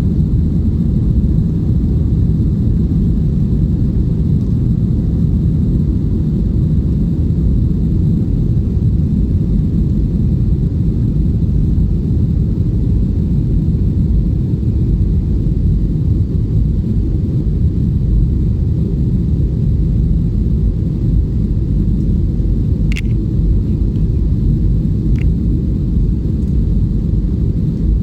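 Airbus A320 cabin noise: the jet's engines and airflow give a steady, loud low rumble. Two short clicks come near the end.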